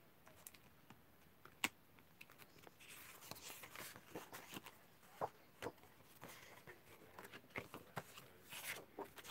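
Faint, scattered rustling and light taps of sheets of patterned craft paper being handled and sorted into piles by hand, with one sharper click about one and a half seconds in.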